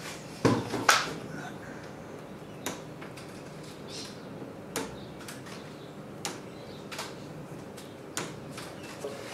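Side cutters snipping the tails off cable ties that hold a garden-hose rim to wire mesh: about eight sharp snips at uneven intervals, the loudest two near the start.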